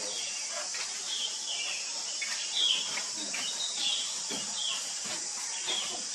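Outdoor woodland ambience: short high chirps repeat every half second to a second over a steady high-pitched insect-like hiss, with a few faint taps.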